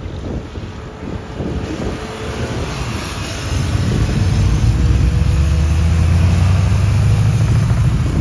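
Diesel engine of a decorated flatbed carrier truck running as it drives and turns close by, its low drone growing markedly louder about three and a half seconds in. Wind buffets the microphone.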